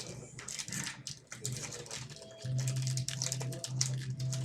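Hockey card packs being opened and cards handled: foil wrappers crinkling and cards clicking and sliding against each other. A low steady hum comes in about two and a half seconds in.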